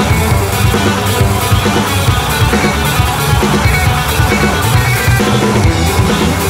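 Indie rock band playing an instrumental passage with loud distorted electric guitar, bass and drums keeping a steady beat.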